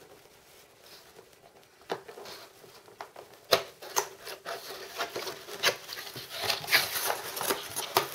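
Cardboard model box being opened by hand: a few scattered clicks and taps, the loudest a sharp snap about three and a half seconds in, then denser scraping and rustling of the cardboard as the white inner box is worked open.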